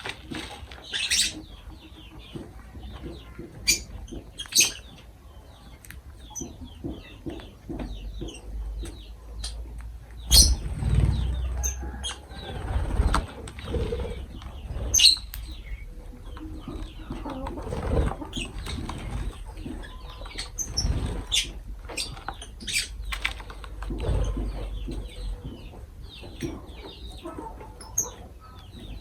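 Lovebirds giving many short, sharp chirps, with bursts of wing flapping and rustling, the loudest about a third of the way in.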